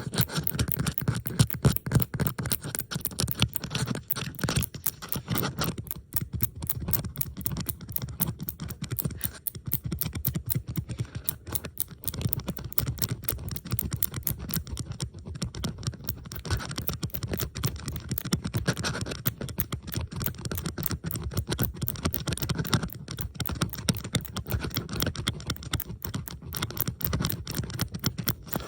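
Metal bobby pins handled close to the microphone: dense, rapid scratching and clicking, with several recordings layered over one another.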